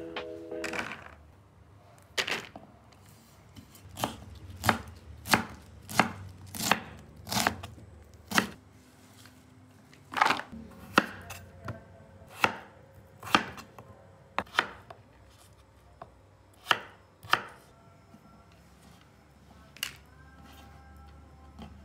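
Kitchen knife chopping vegetables on a wooden cutting board: single sharp strokes, unevenly spaced about a second apart, stopping a few seconds before the end.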